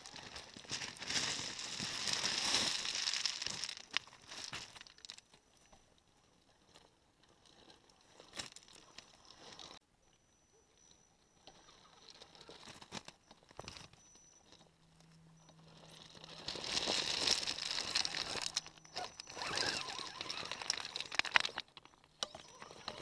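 Loose stones crunching and clattering under an Axial Wraith RC rock racer's tyres as it crawls over a pile of broken rock. The rattling comes in two loud spells, at the start and again in the second half, with quieter stretches between.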